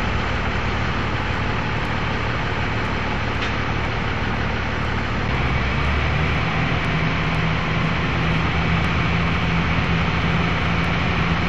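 Cummins diesel engine of a truck-mounted drilling rig running steadily. Its low hum shifts about five seconds in and then holds a steady note.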